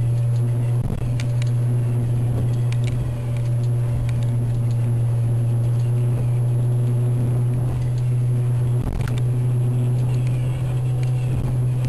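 Motorboat engine running steadily under way, a constant low hum heard from inside the boat behind the windscreen, with a few faint knocks.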